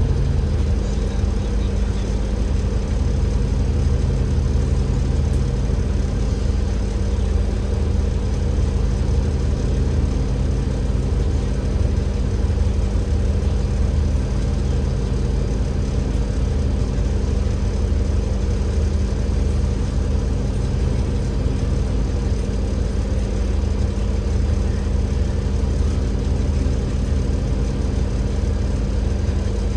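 Cummins L9E inline-six diesel engine of an Alexander Dennis Enviro500 MMC double-decker bus running steadily, a constant low hum that holds one pitch without revving up or down.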